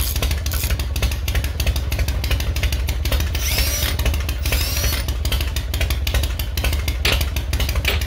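Motorcycle engine running, with a fast, even exhaust pulse.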